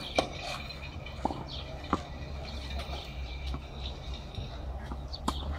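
Tennis ball struck by rackets during a rally on a clay court: a few sharp pops, the loudest about a quarter second in, more around one and two seconds in and one near the end. Under them runs a steady low hum with faint bird chirps.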